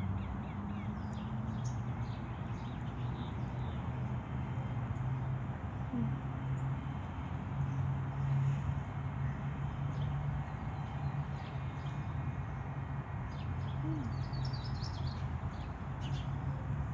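Birds chirping in short high calls, a cluster near the start and another about three quarters of the way through, over a steady low rumble and hiss.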